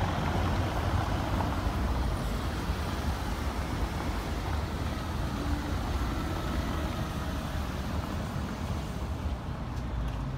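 Steady city street traffic noise from passing cars and other road vehicles.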